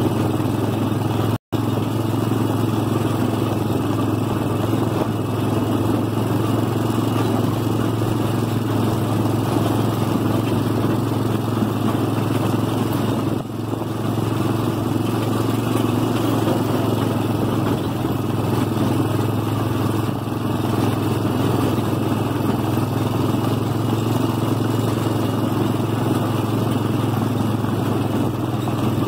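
Honda Recon ATV's single-cylinder four-stroke engine running steadily under way at a constant cruising speed. The sound cuts out for an instant about a second and a half in and eases off briefly about thirteen seconds in.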